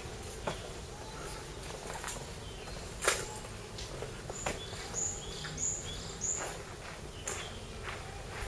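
Outdoor ambience with scattered sharp clicks and knocks, the loudest about three seconds in, and a small bird giving three short high chirps between about five and six seconds in.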